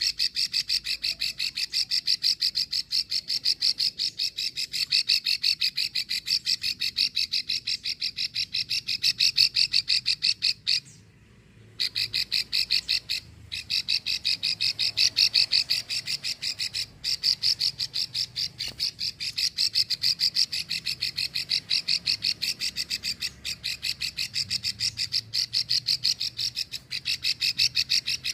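Female plain prinia (prenjak sawah) giving its long ticking call: a fast, even run of dry clicks, several a second, which breaks off for about a second midway and then resumes. This is the female call that keepers play to draw a male into song.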